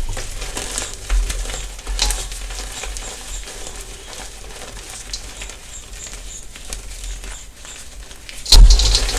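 Dyed gym chalk being crushed and crumbled: soft crackling and gritty crumbling, with a sharp, much louder crunch near the end.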